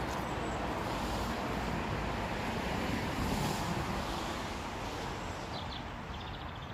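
Steady outdoor background rumble and hiss with no distinct events, and a short run of faint high chirps about six seconds in.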